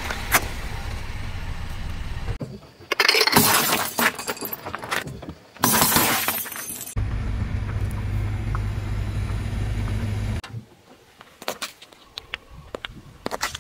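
A car tyre rolling slowly over small objects on pavement and crushing them: a low rumble of the tyre alternates with loud crunching and crackling bursts as the objects break. The sound changes abruptly several times, ending with a quieter stretch of scattered clicks.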